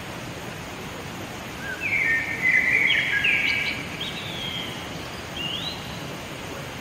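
A bird calling: a run of clear whistled notes with quick pitch glides about two seconds in, lasting about two seconds, then one short rising whistle near the end, over a steady background hiss.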